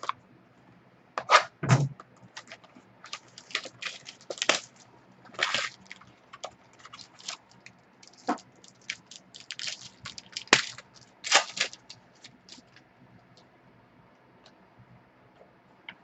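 Trading-card packaging being handled and torn open: plastic wrap and foil packs crackling and snapping in quick irregular bursts, with cards scraping. It goes quiet for the last few seconds.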